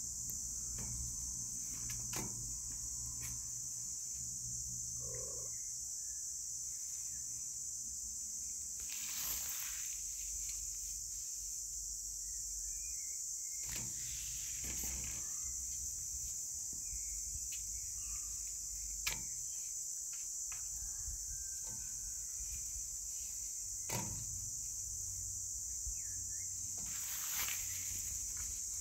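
Steady high-pitched buzzing over a low rumble, with scattered soft clicks, taps and rustles and one sharper click about two-thirds of the way through.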